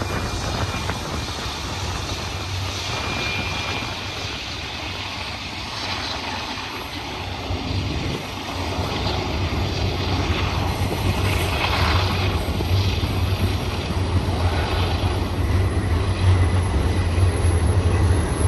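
Long BNSF intermodal freight train rolling past, a steady low rumble that grows louder in the second half, with wind buffeting the microphone.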